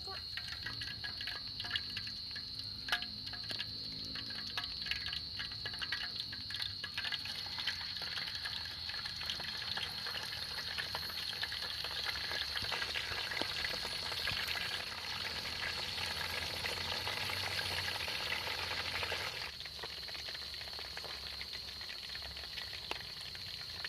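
Food frying in a pan: a steady sizzle with dense crackling and spitting that grows busier and then eases off a few seconds before the end. A steady high insect trill runs underneath.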